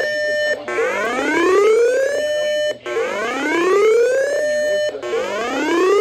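Emergency alert siren tone heard through the speaker of a Uniden BC370CRS radio, signalling a severe thunderstorm warning on FM radio. It is a loud rising whoop that climbs for about a second and a half, holds for a moment, breaks off and starts again, about every two seconds.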